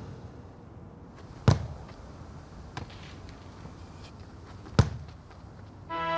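Soccer ball being kicked: two sharp thumps about three seconds apart, with a fainter knock between them. Music comes in just before the end.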